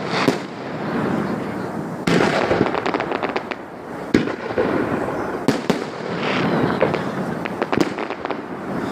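Fireworks display: aerial shells bursting with sharp bangs every second or two, with runs of rapid crackling between them.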